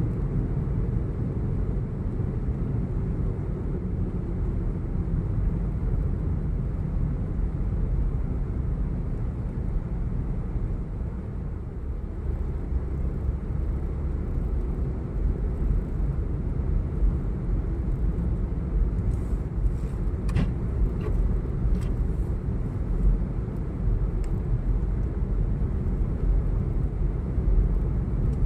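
Steady low rumble of a moving vehicle, with a few faint clicks about two-thirds of the way through.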